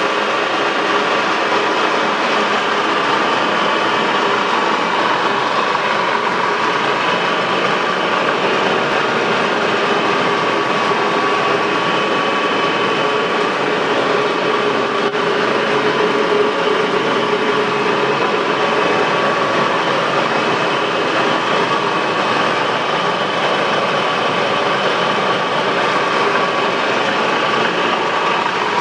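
VDF Böhringer centre lathe running with no cut being taken: a steady mechanical drone with a constant whine from the geared headstock.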